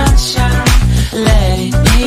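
Background pop song with a steady drum beat and bass.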